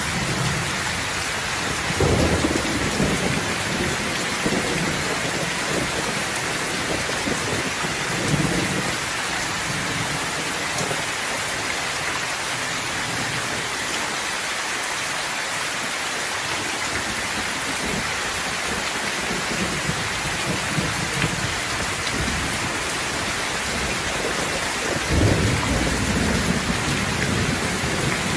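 Steady rain falling, with rolls of thunder: low rumbles at the start and about two and eight seconds in, and a longer, louder rumble rolling in near the end.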